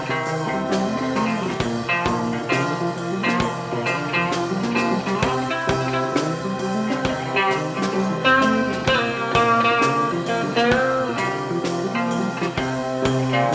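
Rock-style band music with guitar over a moving bass line and drum beats.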